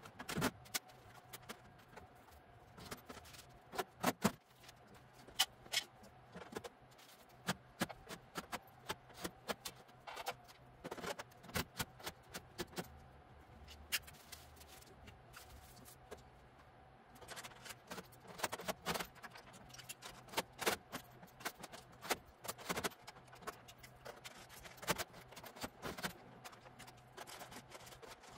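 Irregular clicks, knocks and light clatter of a metal storage cabinet's panels and parts being handled during assembly, over a faint steady hum.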